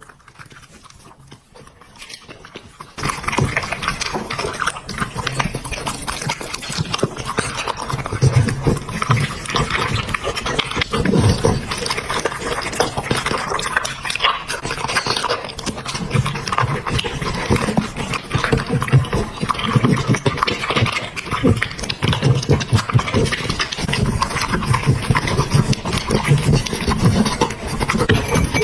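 A dog eating at close range: a dense run of crackly clicks and low smacking sounds with some panting, starting suddenly about three seconds in.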